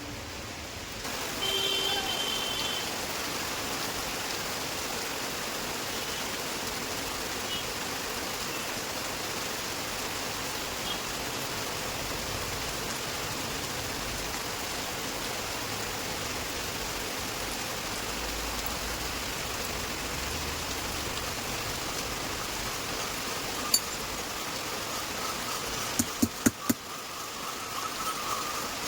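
Heavy rain falling, a steady even hiss, with a few sharp clicks near the end.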